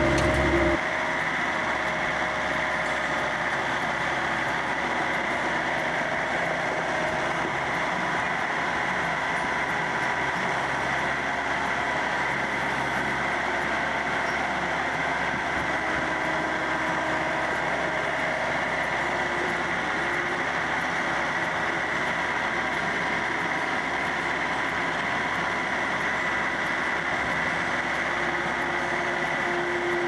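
Bobcat skid-steer loader's diesel engine running steadily as the machine inches along a trailer's edge carrying a heavy pallet. A deeper rumble drops away about a second in, leaving a constant, even engine sound with a faint high steady whine.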